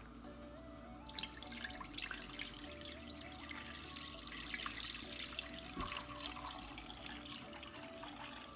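Milk being poured from a glass jug into a stainless steel pan: a steady splashing pour that starts about a second in, is loudest midway and eases off near the end.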